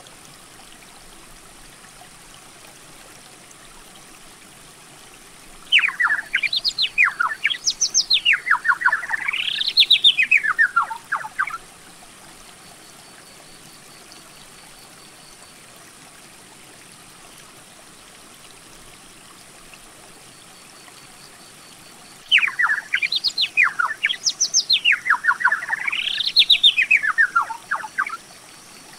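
A songbird singing a long, fast song of rapidly repeated notes that sweep up and down in pitch, given twice, once about six seconds in and again about twenty-two seconds in, each lasting about six seconds.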